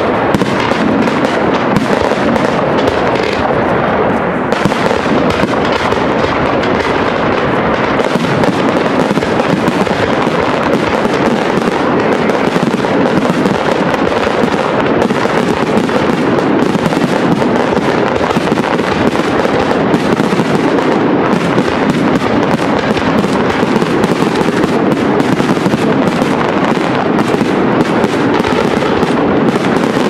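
Large fireworks display going off: a dense, unbroken run of bangs and crackling from bursting aerial shells, steady in loudness throughout.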